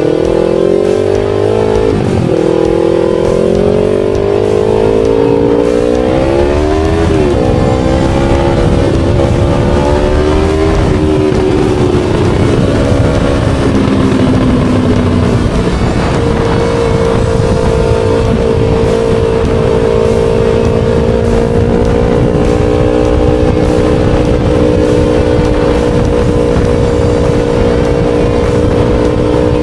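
Yamaha R3 parallel-twin engine on the move: its pitch climbs and dips through gear changes for the first half, then holds steady at a constant cruise. Steady wind rush on the helmet microphone underneath.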